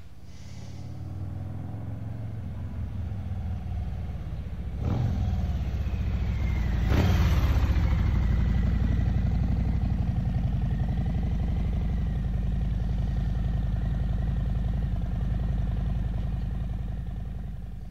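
Harley-Davidson Street Glide's Milwaukee-Eight 114 V-twin running through a Kesstech exhaust, a steady low rumble at low revs. It gets louder about five and again about seven seconds in, then holds steady and fades just before the end.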